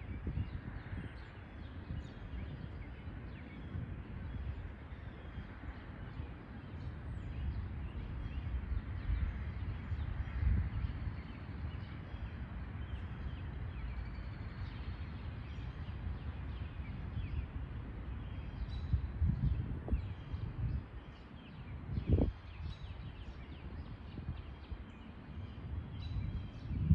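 Scattered faint bird chirps and calls over a low, uneven outdoor rumble that swells and dips, with a single short low bump about 22 seconds in.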